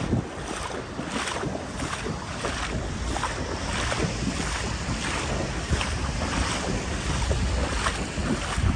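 Wind rumbling and buffeting on the microphone over open floodwater, with faint steps about twice a second as the person filming walks along.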